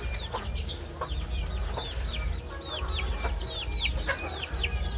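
Chickens clucking and calling: a steady run of short, high calls falling in pitch, several a second, with a few sharp clicks. A steady low rumble runs underneath.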